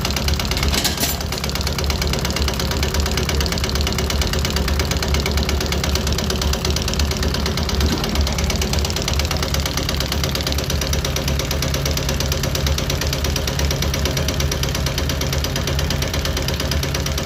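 Diesel injection-pump test bench running a Zexel inline injection pump. The test nozzles fire in a fast, steady, even clatter over the constant hum of the bench drive while the pump's fuel delivery is being tested.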